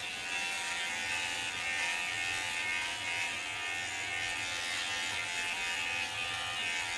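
Cordless electric hair clippers with a guard comb running steadily while cutting short hair up the nape of the neck.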